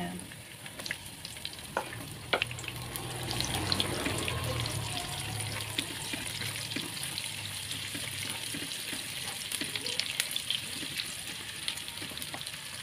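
Sliced shallots and garlic sizzling in hot oil in a nonstick wok. The sizzle swells about three seconds in, once the shallots are in the oil, while a spatula stirring them gives scattered clicks and scrapes against the pan.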